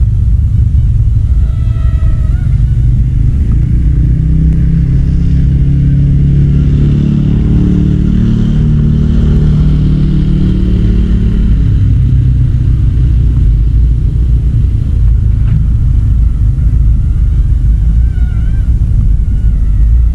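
Wind buffeting the microphone, a loud low rumble. From about four to twelve seconds in, a passing motorcycle's engine rises and fades beneath it.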